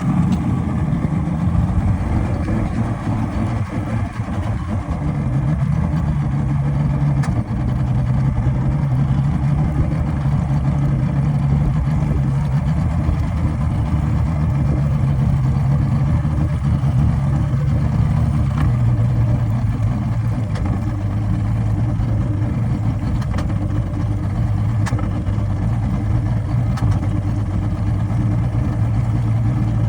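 Engine running steadily with a misfire after it stalled. Its low tone shifts slightly in pitch a few times.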